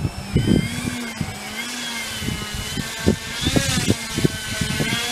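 Electric motor and propeller of an HSD Jets Cessna 182 RC model plane whining as it taxis on grass, the pitch rising and falling with the throttle. Wind buffets the microphone throughout.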